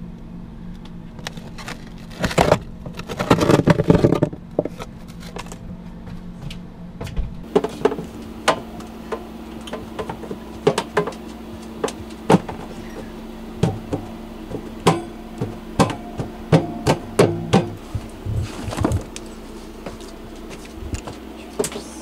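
Scattered knocks and clatters of a freezer being handled, including its wire shelf being fitted back in, over a steady low hum. There is a louder flurry of handling noise a few seconds in.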